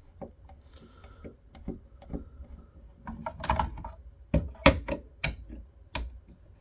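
Irregular clicks and knocks of tools and parts being handled while taking apart a computer subwoofer, busier about three seconds in and ending with a few sharp clicks.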